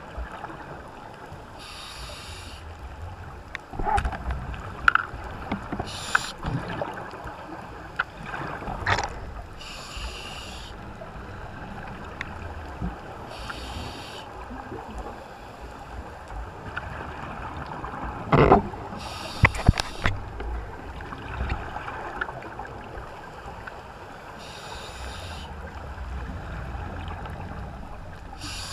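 Muffled underwater sound heard through a camera's waterproof housing: a low rumble, a few sharp knocks and bumps on the housing, and a hissing burst every few seconds.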